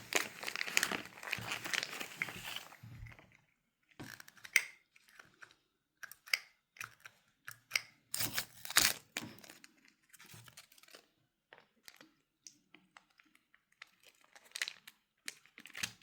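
Packaging being torn open and crinkled for about three seconds, then scattered light clicks and taps as small plastic pieces are handled.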